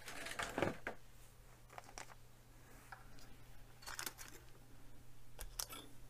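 A few faint, scattered clicks and taps of small kit parts being handled, over a low steady hum.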